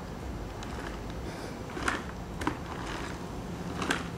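Playground spring rider creaking and clacking as a rider rocks it hard back and forth on its coil spring, in a few short, sharp creaks a second or so apart over a steady low hum.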